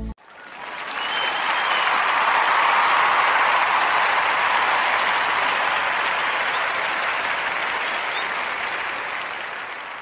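Crowd applause sound effect, swelling in over the first couple of seconds and then slowly fading out, with a faint whistle about a second in.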